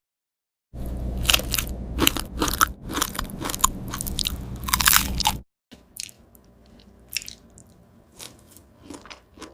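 Close-miked ASMR eating: crunchy bites and chewing of food, loud and dense for about five seconds, then quieter, sparser chewing clicks.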